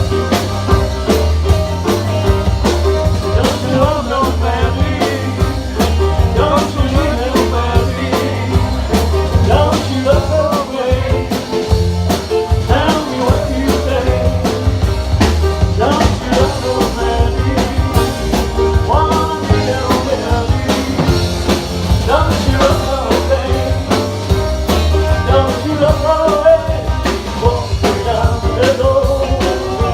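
Live rock band playing an instrumental passage: drum kit keeping a steady beat under bass, with a lead line of bending notes over the top.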